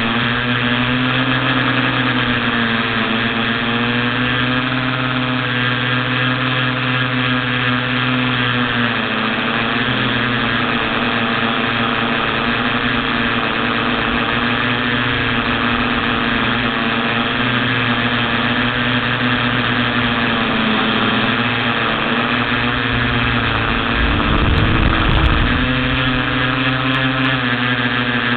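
Electric motors and propellers of a TBS Discovery FPV quadcopter whining steadily, heard from its onboard camera, the pitch wavering slightly as the throttle changes. A brief low rumble comes near the end.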